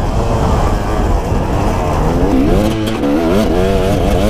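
KTM EXC two-stroke enduro motorcycle engine under way, its pitch rising and falling repeatedly with the throttle, heard from the rider's helmet over a low rumble of wind and engine.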